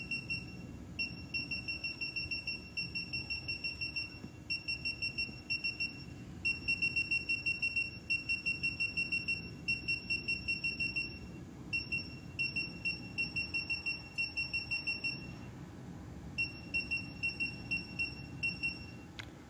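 Touchscreen key beeps from a pressotherapy machine's control panel: short high electronic beeps in quick runs of about five a second, broken by brief pauses. Each beep confirms a tap on an up-arrow key as the zone settings are raised.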